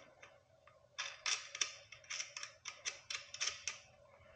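Light metallic clicking of the front axle bolt and washer being threaded onto a fat-tire e-bike's front hub by hand. The clicks come in a quick run of about four a second, starting about a second in and stopping shortly before the end.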